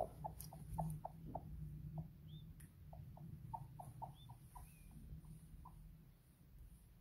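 A broody hen clucking softly and repeatedly, about three clucks a second, the clucks thinning and fading near the end, with a few brief high peeps from newly hatched peachicks. A low steady hum runs underneath.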